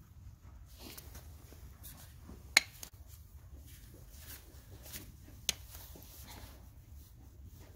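Hoof nippers cutting a horse's hoof wall: two sharp snaps, a loud one about two and a half seconds in and a lesser one about five and a half seconds in, with fainter clicks between.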